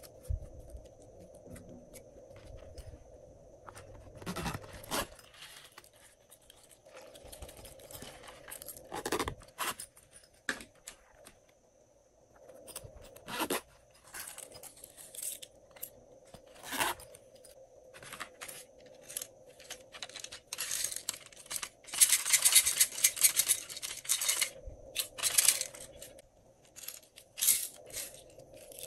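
Glossy slime being stretched, pulled apart and squeezed by hand: scattered sticky tearing, popping and crackling sounds, with a denser, louder spell of fine crackling about three-quarters of the way through. Near the end, light clicks as sprinkles and confetti are tipped onto the slime.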